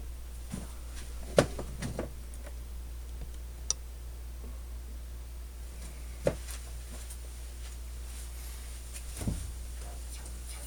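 A few scattered clicks and knocks from a camera being handled and set up, over a steady low hum. The sharpest click comes about a second and a half in.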